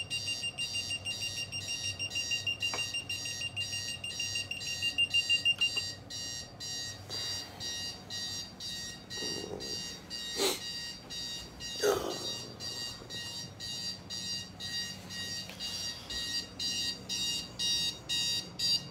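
Two digital bedside alarm clocks going off with rapid electronic beeping. A continuous high tone sounds under the beeping and stops about six seconds in, while the beeping keeps going to the end. There are two sharp knocks and some rustling of bedding around the middle.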